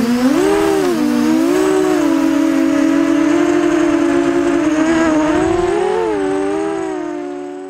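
Mini FPV quadcopter's brushless motors and propellers whining, the pitch rising and dipping with throttle changes, then fading out near the end.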